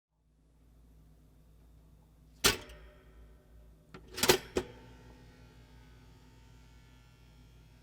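A single sharp knock about two and a half seconds in, then a quick cluster of clicks and knocks a second and a half later, each dying away fast.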